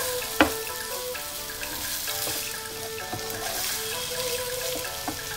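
Pickled green beans and vegetables sizzling in a frying pan as they are stirred, with the utensil knocking sharply against the pan a few times, the loudest about half a second in. Background music plays underneath.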